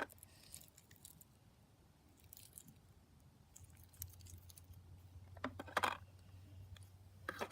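Light clicks and taps of small objects being handled and set down, loudest in a cluster about five and a half seconds in, over a faint low hum that starts about halfway through.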